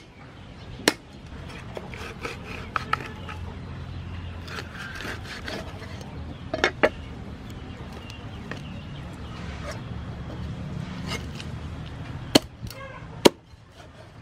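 A large kitchen knife chopping through a raw whole chicken onto a wooden chopping board: sharp knocks at irregular intervals, some in quick pairs, with quieter cutting and rubbing between them. The loudest knocks come near the end.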